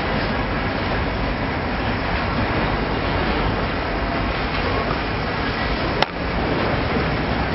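Freight cars rolling past close by: a steady noise of steel wheels running on the rails, with a sharp click and a brief drop in the sound about six seconds in.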